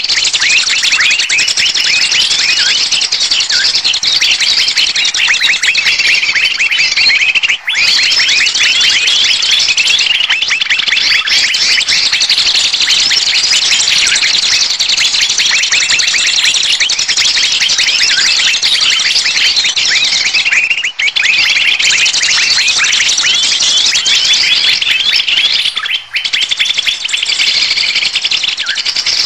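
Bird-lure recording of small birds chirping in a dense, unbroken rush of rapid high calls, the excited chorus that trappers play to draw birds in. It cuts out briefly three times.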